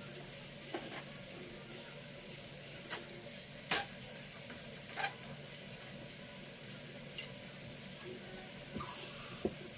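Minced beef and sauce seasonings sizzling softly in a frying pan as they are stirred, with the spatula knocking against the pan every second or two; the sharpest knock comes nearly four seconds in.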